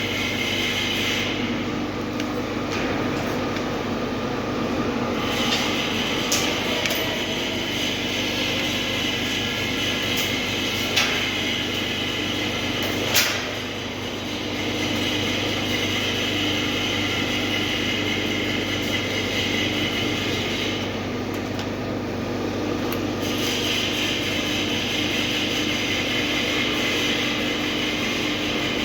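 Electric arc welding on a steel tank seam: a steady arc hiss and crackle over a constant machine hum, with the arc stopping and restarting twice, a few seconds each time, and a few sharp clicks.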